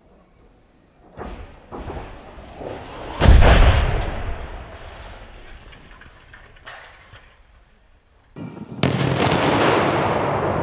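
A reinforced-concrete radio tower crashing to the ground after being toppled by blasting: a few thuds, then one heavy, deep impact about three seconds in, with a rumble that dies away over several seconds. Near the end a sudden loud sharp crack sets off a steady noisy rush.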